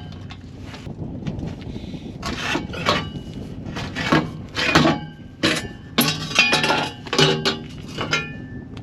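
Loose metal parts clanking and clinking against each other: many sharp knocks at an uneven pace, some leaving a short metallic ring.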